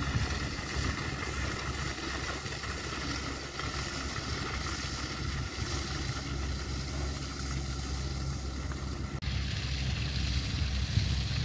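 Case tractor engine running steadily under load while it pulls a Dezwaef slurry tanker that is spreading slurry. A steady drone with a faint whine above it. A brighter hiss of wind on the microphone comes in suddenly about nine seconds in.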